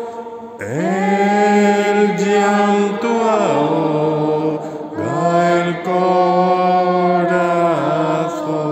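A man's solo singing voice holding long, drawn-out notes of a Spanish worship song, each phrase sliding up into pitch as it begins; the melody steps down to a lower held note about halfway through.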